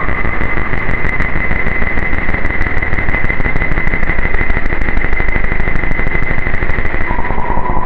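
Roland AIRA Compact S-1 synthesizer playing a dark-ambient noise drone: a dense hissing, rumbling wash under one steady high tone, with rapid ticking above it. Near the end the tone drops to a lower steady pitch.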